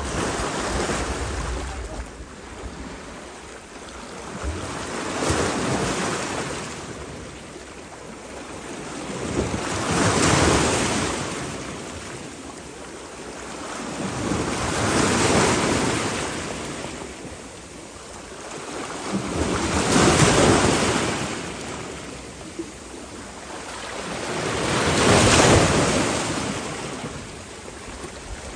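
Waves breaking and washing in, swelling and fading about every five seconds, with some wind on the microphone.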